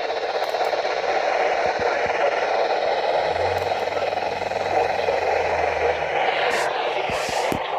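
Steady static hiss from a weather radio receiver, with a low hum rising under it for about three seconds in the middle.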